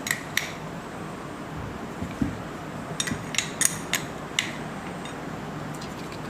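Small metal parts of a Makita trimmer router clinking and tapping as it is put back together by hand after a bearing service: two sharp clicks near the start, a dull knock about two seconds in, then a quick run of clinks between three and four and a half seconds in.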